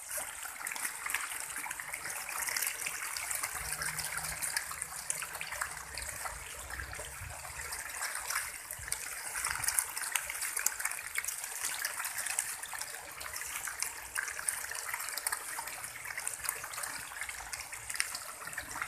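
Catfish in a densely stocked pond splashing and thrashing at the surface as pellet feed is scattered over them: a steady, dense patter of many small splashes, the sound of a feeding frenzy.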